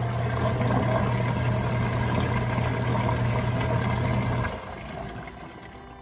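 Twin-tub portable washing machine's wash motor running with a steady electric hum, its pulsator churning the water in the wash tub. The motor stops about four and a half seconds in.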